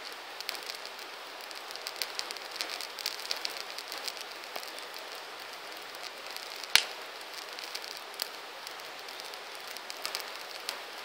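Wood campfire burning: a steady hiss with frequent small crackles, and one loud, sharp pop about seven seconds in.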